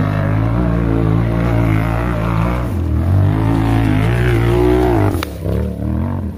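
Rock buggy's engine revving hard under load on a loose rocky hill climb, its pitch rising and falling repeatedly as the throttle is worked. A single sharp crack comes about five seconds in.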